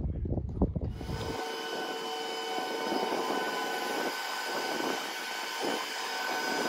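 A boat travel lift's engine and hydraulics running with a steady whine of several tones as it lowers a motor yacht in its slings toward the water. About a second in, a low rumble gives way to the whine.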